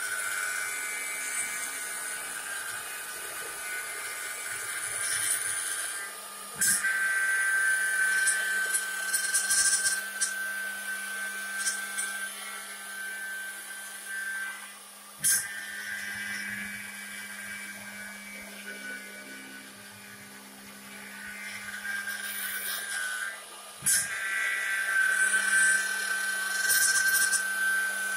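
CNC wood lathe cutting a spinning wooden spindle blank: a steady high-pitched motor whine over a low hum, with wood-cutting noise that swells and fades as the tool travels along the piece. The whine drops out briefly three times, about every nine seconds.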